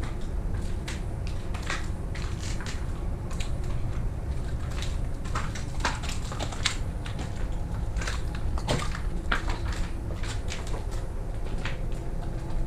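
Footsteps crunching over rubble and broken debris: an irregular series of crunches and clicks over a steady low rumble.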